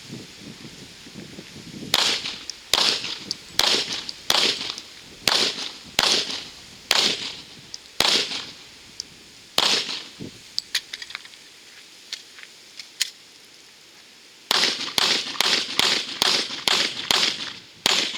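Glock 22 pistol (.40 S&W) fired in a measured string of about nine shots, under a second apart. After a pause with a few light clicks, the magazine change, comes a faster string of about eight shots, two to three a second.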